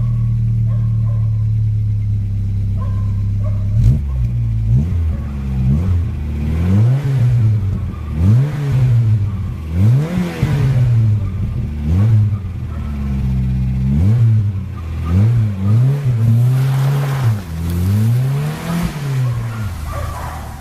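VW Golf Mk2 engine idling steadily, then from about four seconds in revved again and again, the pitch rising and dropping back each time in a run of quick blips.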